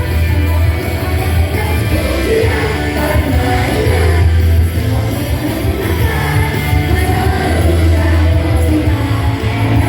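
Rock band playing live with a singer: heavy bass and drums under a sung vocal line, loud and continuous.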